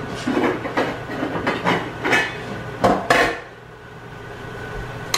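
Kitchen pots and utensils clattering: a run of knocks and clanks during the first three seconds or so, loudest near the third second, then quieter with a steady low hum.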